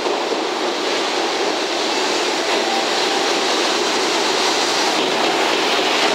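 Container freight train hauled by a JR Freight EF210 electric locomotive passing close by at speed: a loud, steady rush of wheel and rail noise from the locomotive and the long line of container wagons.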